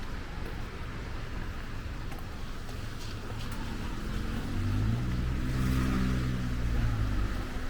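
Steady hiss of rain, with a motor vehicle approaching and passing from about halfway in; its engine hum and the hiss of its tyres on the wet road are loudest near the end.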